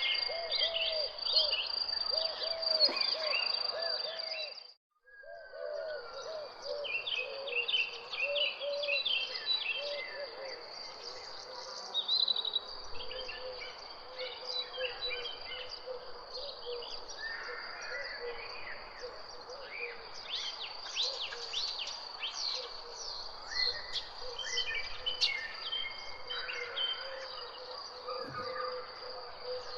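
Birdsong ambience: many birds chirping and singing over a steady high-pitched insect trill, with a run of repeated low calls in the first half. The sound drops out briefly about five seconds in.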